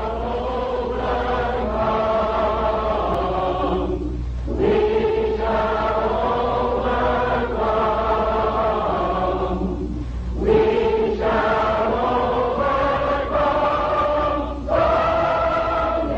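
A group of voices singing a slow, hymn-like song together, in long held phrases of about five to six seconds with short breaks between them, over the steady low hum of an old recording.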